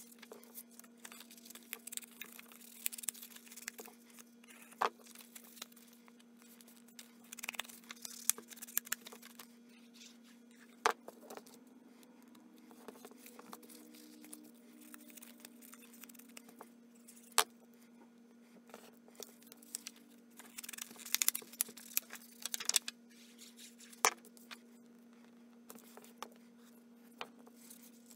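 Cardstock and paper being handled on a craft mat: scattered rustles and slides with a few sharper taps as panels are set in place, over a steady low hum.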